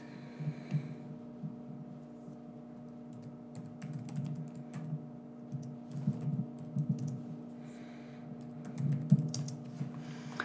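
Typing on a computer keyboard: irregular runs of key clicks, with a steady low hum underneath.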